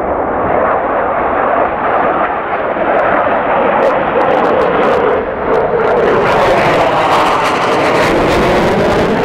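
Jet engine noise from a formation of display jets flying over, a steady rush of sound whose pitch sags slightly around the middle and then rises again.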